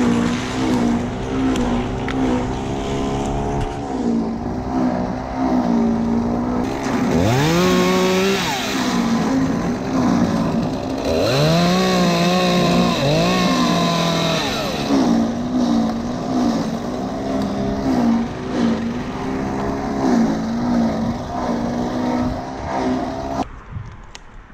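Stihl MS 201 T top-handle two-stroke chainsaw idling, revved up twice to cut through a birch limb, then dropping back to idle each time. The engine stops abruptly about a second before the end.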